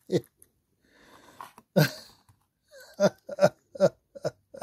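A person's short, repeated voice sounds: one just after the start, another about two seconds in, then a quick run of five near the end.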